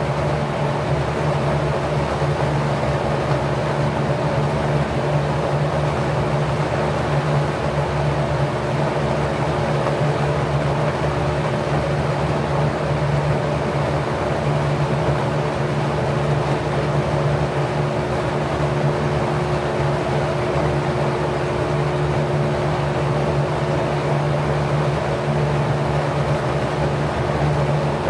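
Packard 99319 single-speed 1/5 hp electric motor spinning a 20-inch four-blade, 27° pitch LAU propeller at a constant speed: an even, unchanging hum with a steady rush of air.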